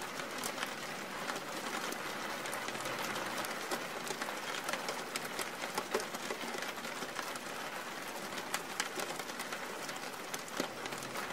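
Faint, steady background ambience: an even hiss with many small scattered ticks and crackles, the kind of backing bed laid under a narration.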